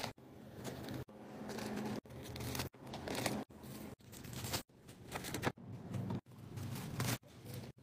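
Plastic grocery packaging rustling and crinkling as items are handled and set into a wire shopping cart, over a low steady hum. The sound cuts off abruptly about once a second and starts again.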